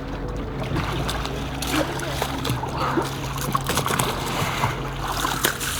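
Water splashing and sloshing around a kayak, with many short irregular splashes.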